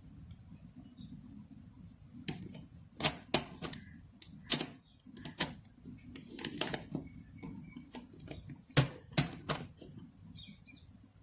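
Sharp plastic clicks and clacks from a YJ Yulong V2 M magnetic speed cube being handled and turned: about a dozen irregularly spaced clicks starting about two seconds in and stopping shortly before the end.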